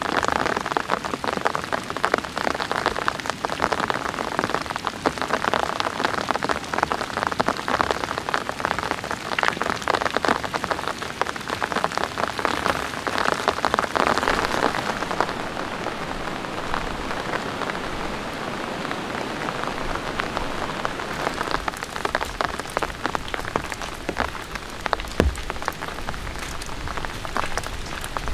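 Heavy rain falling steadily, a dense clatter of countless drops hitting a surface. It eases slightly about halfway through.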